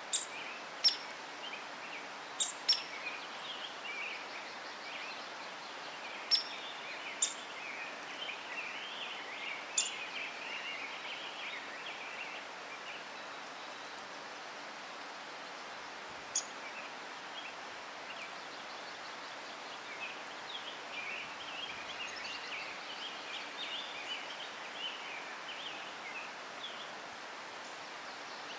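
Several wild birds calling: a busy high twittering and chattering, with sharp high chip notes about eight times, most of them in the first ten seconds, over a steady outdoor hiss.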